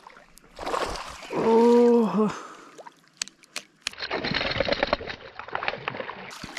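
Water splashing around a fishing kayak, with a loud, short, held call on one pitch about a second and a half in, dipping as it ends.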